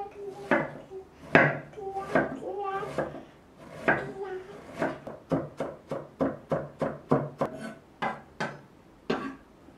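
Chef's knife chopping onion on a wooden cutting board: a run of sharp knocks of the blade on the board, settling into about three a second in the second half as the onion is minced fine.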